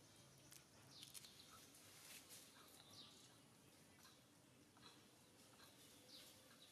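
Near silence: faint outdoor ambience with scattered short, high chirps, about one a second.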